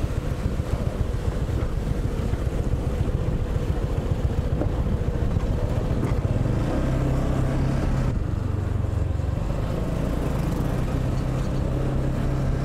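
Motorbike engine running at low speed, its note easing off and picking up again a few times, with wind noise on the microphone.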